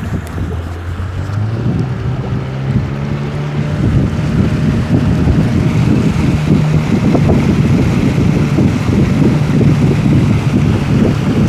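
Boat's outboard motor running under way, rising in pitch over the first few seconds and then holding steady, with wind buffeting the microphone.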